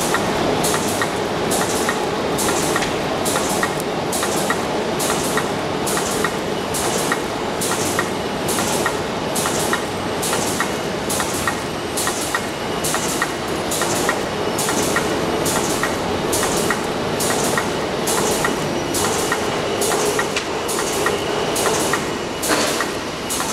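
Reel-fed die-cutting machine running, its die press stamping through a web of printed paper fed off a roll, with a regular click about twice a second over a steady mechanical clatter.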